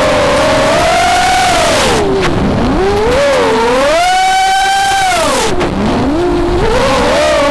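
Brushless motors and propellers of a 180 mm FPV racing quadcopter with Cobra 2204 2300 KV motors, whining with a rushing sound. The pitch drops steeply twice, about two and a half seconds in and again near six seconds, as the throttle is cut to let the quad fall, and climbs back each time it is punched out, holding a high steady whine in between.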